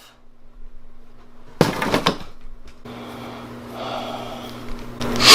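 Handling noise: a sudden knock about one and a half seconds in, then rustling and scraping, and a louder clatter near the end, over a faint steady hum.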